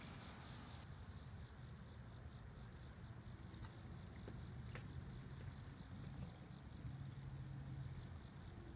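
Faint outdoor ambience with the fountain's water jets running: a steady high hiss over a low hum, as the last of the music fades in the first second.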